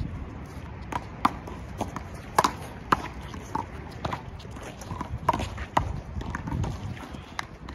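Handball rally: an uneven string of sharp smacks as a small rubber handball is slapped by hand and strikes the concrete wall and court, with players' footsteps scuffing on the concrete.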